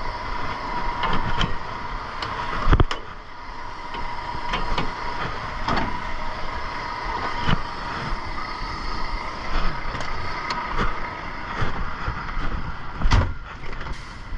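Semi truck running and moving slowly through a trailer yard, with frequent knocks and rattles over the steady engine noise. Two louder thumps come about three seconds in and near the end.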